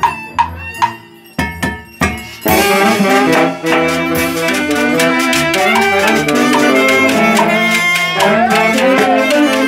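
Andean orquesta típica playing live: a few drum strokes and scattered notes at first, then about two and a half seconds in the full band comes in, with saxophones leading over harp, violin, trumpet, and a drum and cymbal keeping a steady beat.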